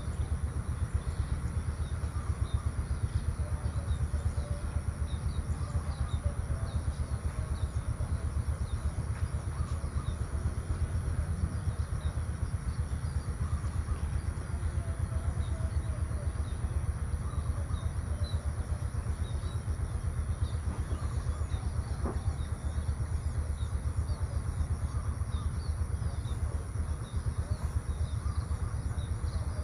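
Outdoor rural ambience: a steady low rumble with many small bird chirps scattered throughout and a steady high hiss.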